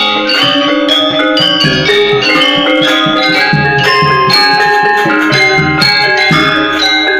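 Balinese gamelan playing: bronze-keyed gangsa metallophones over bamboo resonators struck with wooden mallets in rapid, densely layered ringing strokes, with kendang drum strokes beneath.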